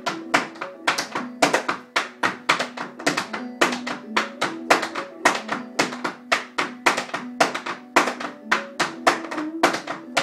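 Flatfoot dancing in tap shoes: a fast, steady rhythm of sharp taps, about five a second, over an old-time clawhammer banjo tune.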